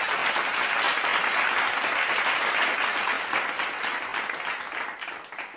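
Applause from many clapping hands, dense and steady, fading away near the end.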